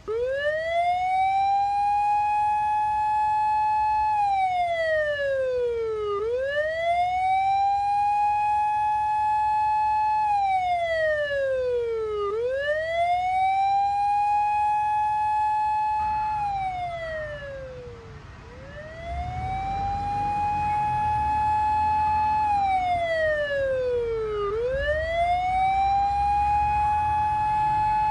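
Electronic police-car siren wailing through a siren amplifier's speaker: each cycle rises quickly, holds its top pitch about two seconds, then slides down, repeating about every six seconds. It fades briefly about two-thirds of the way through, and a low rumble runs underneath from then on.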